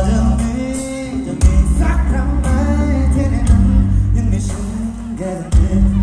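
Live rock band playing through a concert PA: a singer holds long, gliding sung lines over electric guitars, bass and drums. The band dips briefly, then comes back in strongly near the end.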